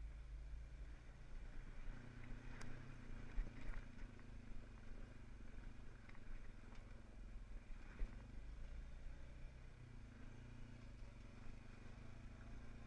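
An off-road vehicle's engine running steadily at low revs as a low hum while it rolls down a rough dirt track, with a few sharp knocks and rattles from the bumps.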